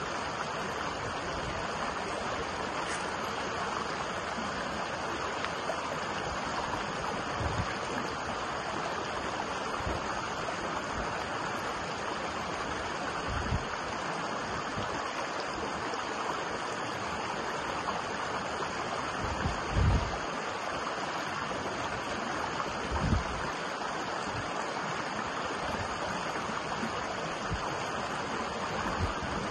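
Small rocky stream running steadily over rocks and boulders. A few short low thumps come through, the loudest about twenty and twenty-three seconds in.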